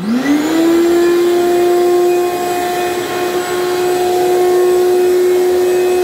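Ridgid wet/dry shop vacuum switched on: the motor spins up with a quickly rising whine in the first second, then runs at a steady high hum.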